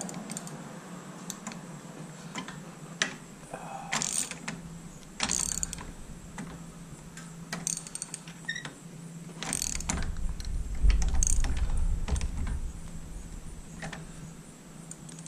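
A socket ratchet with an Allen bit clicks and metal tools clink while the shifter peg bolt of a Harley-Davidson Sportster is worked loose. There are scattered sharp clicks and short scrapes, and a low rumble in the middle.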